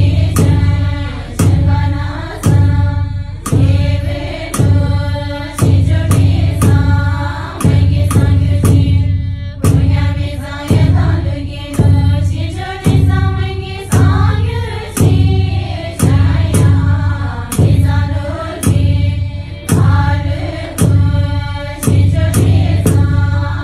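Tibetan Buddhist nuns chanting prayers together, kept in time by a sharp beat struck about once a second.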